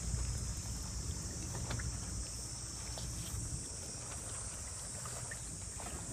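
Wind rumbling on the microphone under a steady high hiss, with a few faint, scattered clicks.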